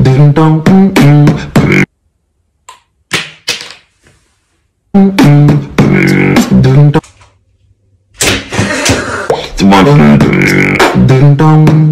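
A voice making rhythmic beatbox-style mouth sounds, in four loud phrases separated by short silences.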